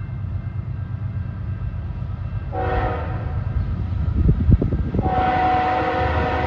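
Approaching CN freight train's diesel locomotive sounding its multi-note air horn: a short blast about two and a half seconds in, then a long blast from about five seconds in that carries on. A low rumble runs underneath.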